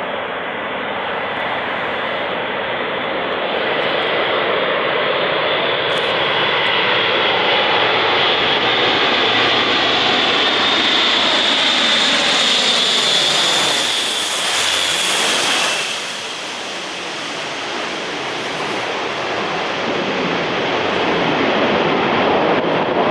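Airbus A400M Atlas flying past with its four Europrop TP400-D6 turboprop engines and propellers running. The sound builds steadily to its loudest about two-thirds of the way in, its tones fall in pitch as it passes, and it drops off suddenly.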